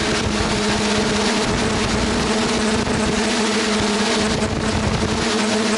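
Quadcopter's four brushless motors with 9-inch propellers running steadily, a constant multi-tone hum heard from the onboard camera with a hiss of air rushing over it, as the drone holds nearly still in a hover.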